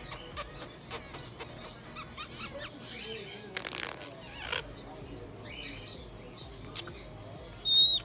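African grey parrot vocalising: a run of sharp clicks, a harsh noisy squawk about three and a half seconds in, and a loud high whistle just before the end, the loudest sound.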